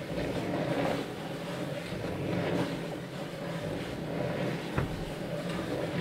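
Drawing machine running steadily: a low mechanical hum with the whir of its turning wooden discs and linked arms, and one light click a little before the end.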